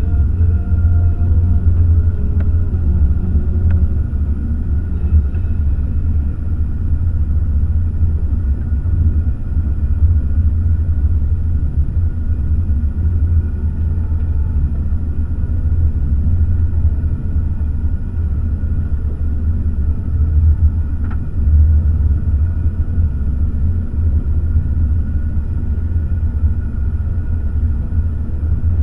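Motorboat engine running steadily while the boat is under way at low speed: a constant low rumble with a faint steady whine above it.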